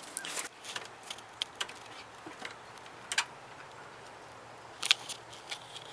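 A quiet stretch with a few scattered sharp clicks and taps, the loudest about five seconds in, over a faint low hum.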